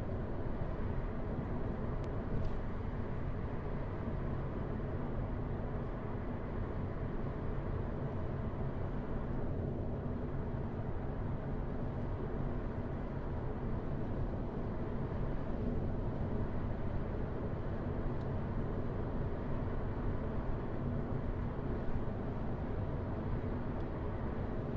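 Steady low road noise of a car being driven at a steady pace, tyres and engine running evenly, with a faint click or two.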